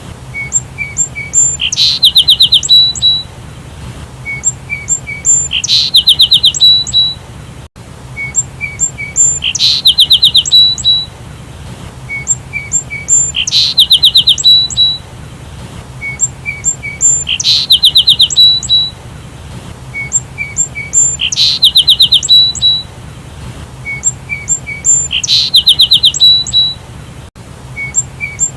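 Sparrows chirping: a fast run of loud, rapid chirps lasting about a second, repeated evenly about every four seconds, with thinner high chirps between.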